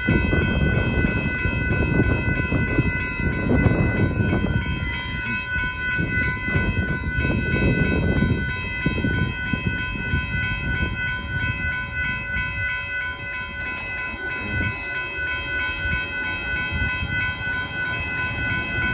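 Amtrak Texas Eagle passenger train rolling past a road crossing, its wheels rumbling and clacking over the rails, loudest in the first half and easing off later. A steady, slightly pulsing ringing runs throughout, most likely the crossing's warning bell.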